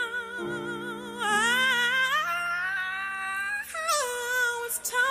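A live soul ballad: a singer holds a long note with a wide vibrato over sustained grand piano chords, then slides the voice upward in a drawn-out melisma.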